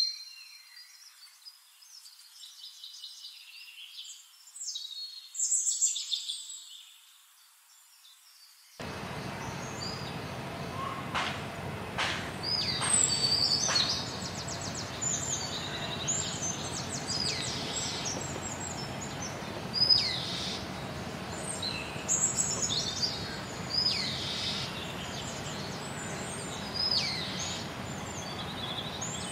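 Small birds chirping, many short, high calls with quick falling notes. For the first nine seconds the sound is quiet and thin. It then cuts to a fuller, steady outdoor background hiss with calls coming more often.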